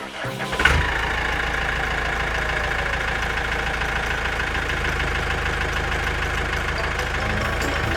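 A vehicle engine starts up about a second in and keeps running at a steady, even level.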